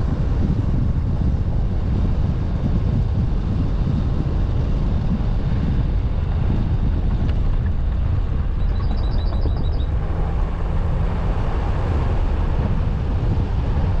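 Car driving along a road: a steady low rumble of engine and road noise with wind buffeting the microphone. A short run of quick, high chirps sounds about nine seconds in.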